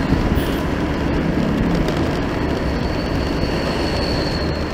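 A heavy vehicle driving past close by: a steady, loud rumble of engine and tyres, with a faint high whine coming in about three seconds in.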